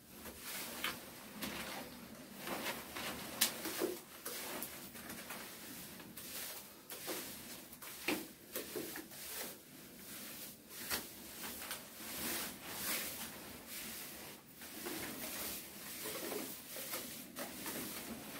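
A hand tool scraping, smoothing and tapping wet cement slurry on a bathroom floor, in irregular strokes with frequent short knocks.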